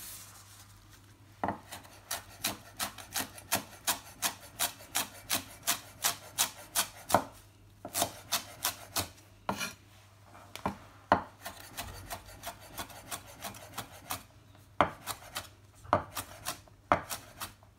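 Kitchen knife chopping coriander leaves on a wooden chopping board: quick, even knocks of the blade on the wood, about three a second, thinning out to scattered single strikes about halfway through.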